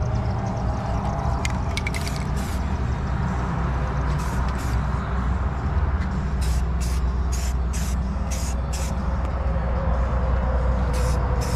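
Aerosol spray-paint can hissing in short bursts: a few quick sprays about two seconds in, a run of about eight between six and nine seconds, and more near the end. Under it is a steady low rumble.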